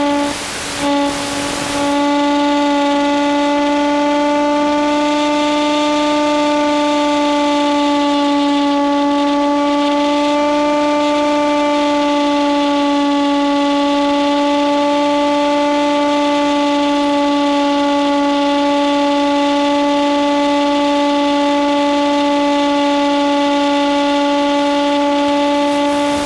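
The Hawk Sky's stock electric motor and propeller drone at a nearly constant pitch, heard over the plane's radio link. Bursts of radio static break in for the first couple of seconds and again at the end, as the 900 MHz link drops out.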